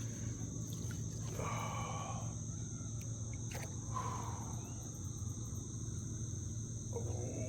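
Insects chirring in a steady high-pitched drone, over a low steady hum, with a few faint short sounds and a sharp click about midway.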